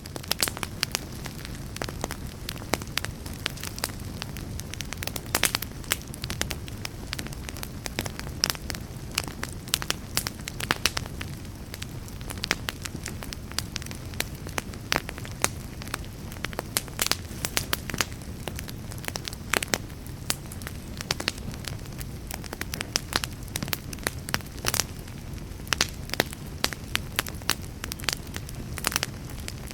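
Fire burning in a fireplace, crackling with frequent irregular sharp pops over a steady low rush of the flames.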